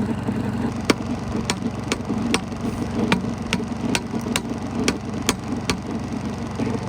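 An engine idling steadily, with a run of about a dozen sharp clicks or taps, roughly two a second, from about a second in until shortly before the end.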